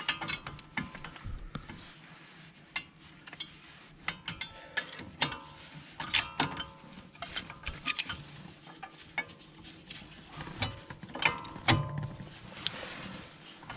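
A steel screwdriver levering at the brake pads in an Audi A3's front brake caliper, making irregular metallic clicks, scrapes and clinks of metal on the caliper and pad backing plates. Near the end comes a louder clatter as the caliper and pads are handled.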